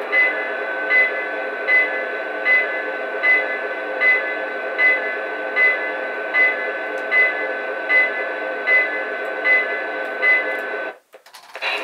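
Electronic sound effects from a stationary Lionel 671 S-2 turbine locomotive: a steady whine with a short ringing tone repeating about every 0.8 s. The sound cuts out briefly near the end and then comes back.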